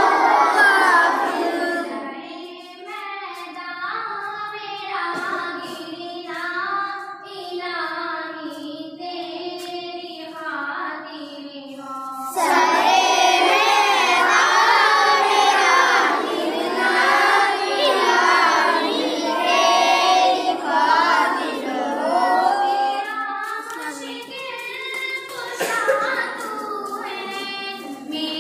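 Children singing a hamd, an Urdu devotional hymn in praise of God. The singing gets suddenly louder about twelve seconds in.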